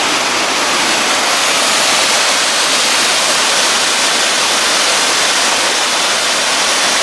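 Becky Branch Falls, a small mountain-creek waterfall, rushing steadily: an even hiss of falling water with no pauses.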